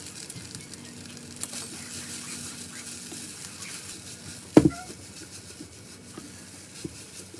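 Food sizzling as it fries in a pan, with light clicks of a utensil stirring it and one louder knock about halfway through.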